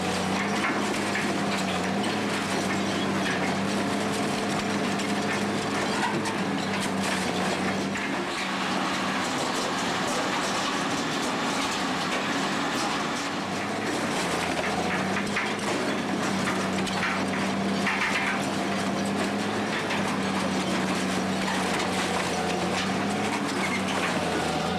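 Metso (M&J) 4000-8 mobile pre-shredder running under load, its engine humming steadily and dipping slightly in pitch now and then, while wooden railway sleepers crack and splinter in the shredder.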